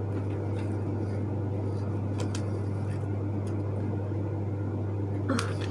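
A steady low background hum with a faint hiss, and a few light clicks about two seconds in.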